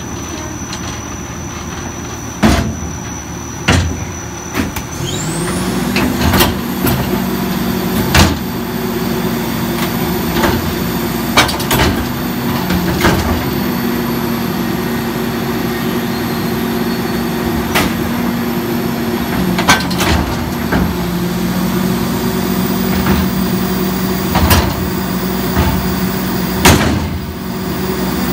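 Rear-loader garbage truck emptying a steel dumpster. The engine revs up about five seconds in to drive the hydraulic dumpster lift, with a rising whine, and about a dozen loud bangs and clanks come as the container is hooked, lifted and tipped into the hopper.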